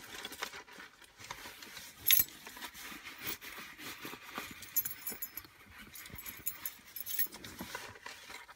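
Car keys jangling and clicking as they are handled, with a sharp click about two seconds in and a spell of light jingling in the latter half.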